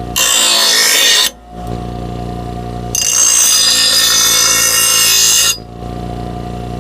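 Electric grinder running with a steady hum while a steel mower blade is pressed against the spinning grinding wheel twice, giving a loud, hissing grind: about a second near the start, then about two and a half seconds from three seconds in.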